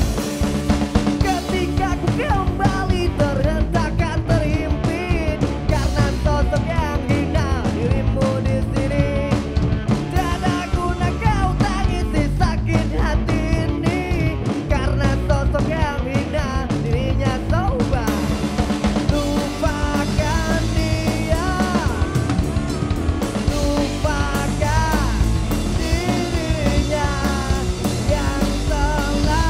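Punk rock band playing live: electric guitar, bass guitar and drum kit, with a lead vocal sung over them.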